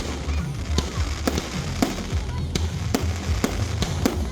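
Aerial fireworks going off in quick succession: about eight sharp bangs, roughly two a second, over a continuous low rumble.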